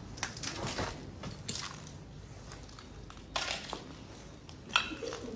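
Footsteps crunching and scuffing over rubble and broken plaster, with loose debris clattering underfoot and one sharper crack near the end.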